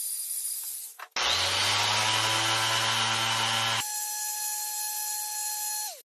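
Power tools on wood: a Makita compact router running for about a second, then, after a cut, a random orbit sander running loudly on the wood. About four seconds in it changes to a steadier whine of the tool running free, which starts to wind down just before the sound cuts off abruptly.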